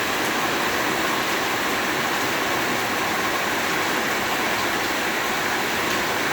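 Very heavy rain beating on a roof, a steady, dense wash of noise.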